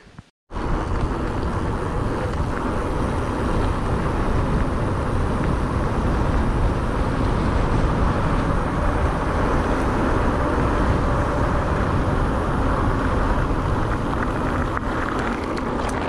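Steady rush of wind on a helmet camera's microphone, mixed with tyre noise from a mountain bike rolling along a road. It cuts in abruptly just after the start and stops abruptly at the end.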